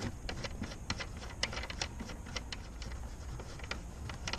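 Irregular light clicks from a hand working behind the trunk trim to undo the rear tail light's plastic thumb nut, several clicks a second at uneven strength.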